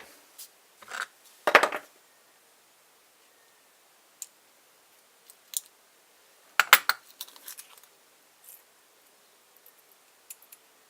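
Scattered sharp clicks and small clatters of a padlock being handled with a plug follower while its core is taken out. A louder burst of clatter comes about two-thirds of the way through.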